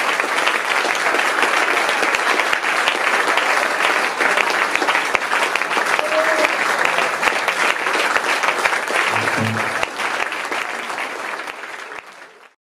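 Concert audience applauding, dense clapping that dies away and cuts off abruptly near the end.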